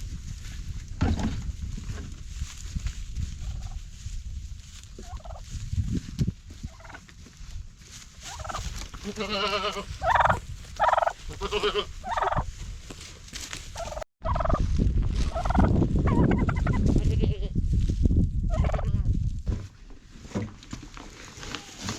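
Barnyard poultry calling: several short calls about nine to twelve seconds in, over a steady low background noise.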